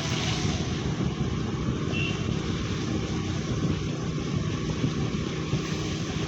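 Steady rumble of a moving vehicle with wind noise on the microphone.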